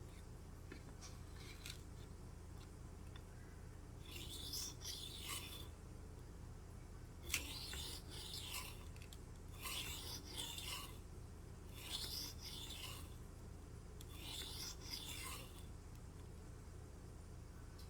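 Cold Steel Kobun tanto blade being drawn across a whetstone in five slow sharpening strokes, each about a second long, some two to three seconds apart.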